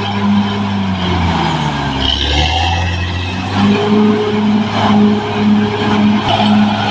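Caterpillar D6R XL bulldozer's diesel engine running under load, with a low note that pulses about twice a second. The engine pitch sags about a second in and picks back up about halfway through.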